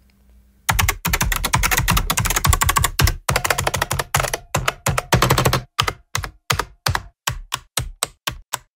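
Typing on vintage mechanical keyboards: a fast, dense run of key clicks starts about a second in and thins to single, spaced keystrokes toward the end.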